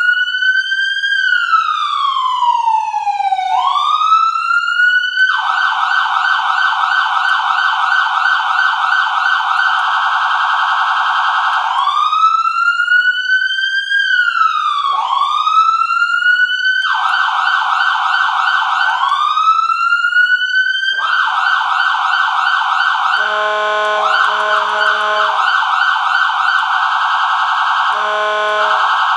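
Whelen electronic emergency siren, driven by a 100-watt amplifier through a bumper-mounted speaker, switching every few seconds between a slow rising-and-falling wail and a fast yelp. It is loud. In the last several seconds a lower, choppy tone cuts in and out over the yelp.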